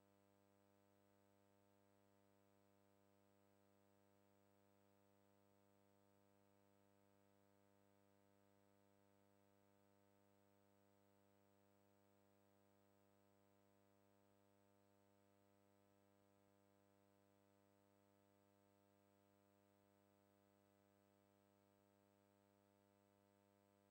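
Near silence, with only a faint, steady, unchanging hum.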